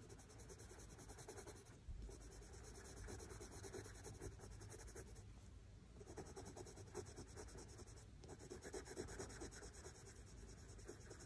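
Faint scratching of a soft-core Prismacolor coloured pencil shading on cartridge paper in a steady run of quick, short strokes.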